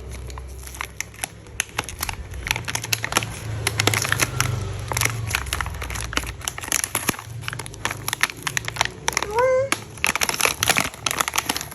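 Plastic packaging crinkling and crackling in rapid, irregular clicks as a toy set is unwrapped by hand.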